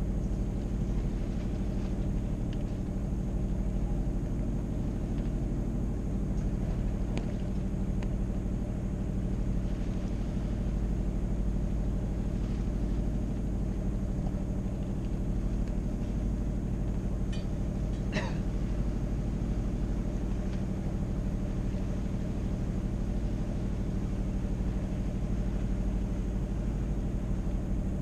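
A sailboat's auxiliary engine running steadily under way, a constant drone with a brief click about two-thirds of the way through.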